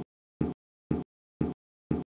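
A short snippet of sound, about a sixth of a second long, repeating exactly twice a second with dead silence between: a stuck, looping broadcast audio glitch from a frozen live feed.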